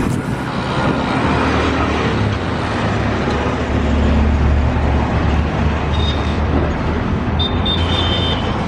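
A truck's engine running close by, a loud low rumble that swells around the middle, over street traffic noise. A thin high tone comes in briefly twice near the end.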